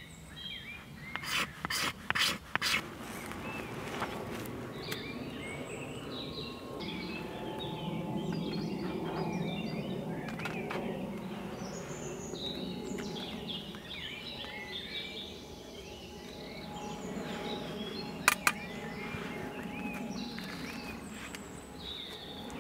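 Small birds chirping and singing throughout. A quick cluster of sharp scraping strikes comes about one to three seconds in, while a fire is being lit in a small wood-burning stove, and two more sharp strikes come about eighteen seconds in.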